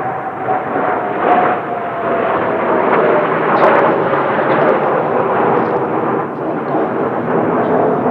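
Kawasaki T-4 jet trainers flying past in formation: a loud jet roar with an engine whine that slowly falls in pitch as they go by.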